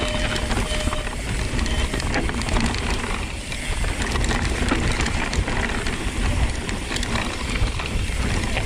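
Mountain bike rolling down a rocky trail: a fast, continuous ratcheting of the rear freehub while coasting, with the bike rattling over stones and wind rumbling on the camera.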